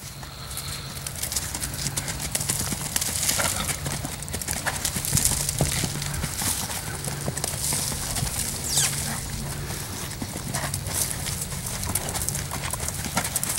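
Hoofbeats of a Tennessee Walking Horse gaiting on a dirt track: a quick, even run of clip-clops in the breed's four-beat walking gait.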